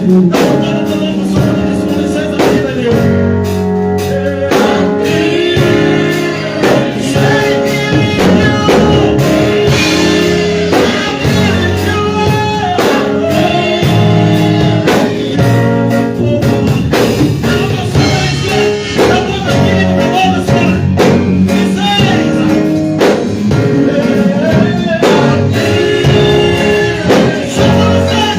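Gospel song, with voices singing over a band with drums.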